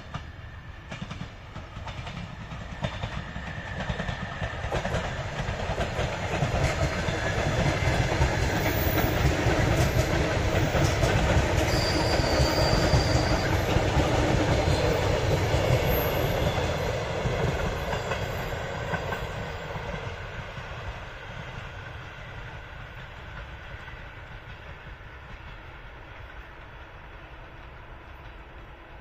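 ER9T electric multiple unit passing by, its wheels clicking over rail joints. The sound swells as the train approaches, is loudest as the cars go by about halfway through, then fades as it moves away.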